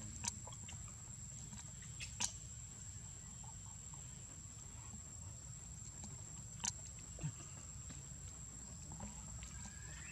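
Faint outdoor ambience: a steady high-pitched insect drone over a low rumble, with a few soft clicks, near the start, about two seconds in and past six seconds.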